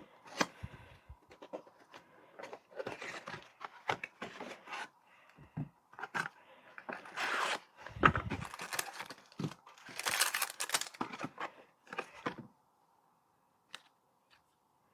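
A doorbell kit's packaging being opened and its contents handled: irregular bursts of tearing and rustling mixed with clicks and knocks, loudest in two stretches past the middle, stopping about twelve seconds in.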